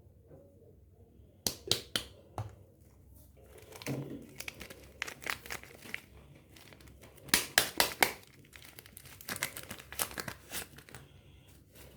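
Soap wrapping being unpacked by hand: crinkling, crackling and tearing in several short spells with pauses between them.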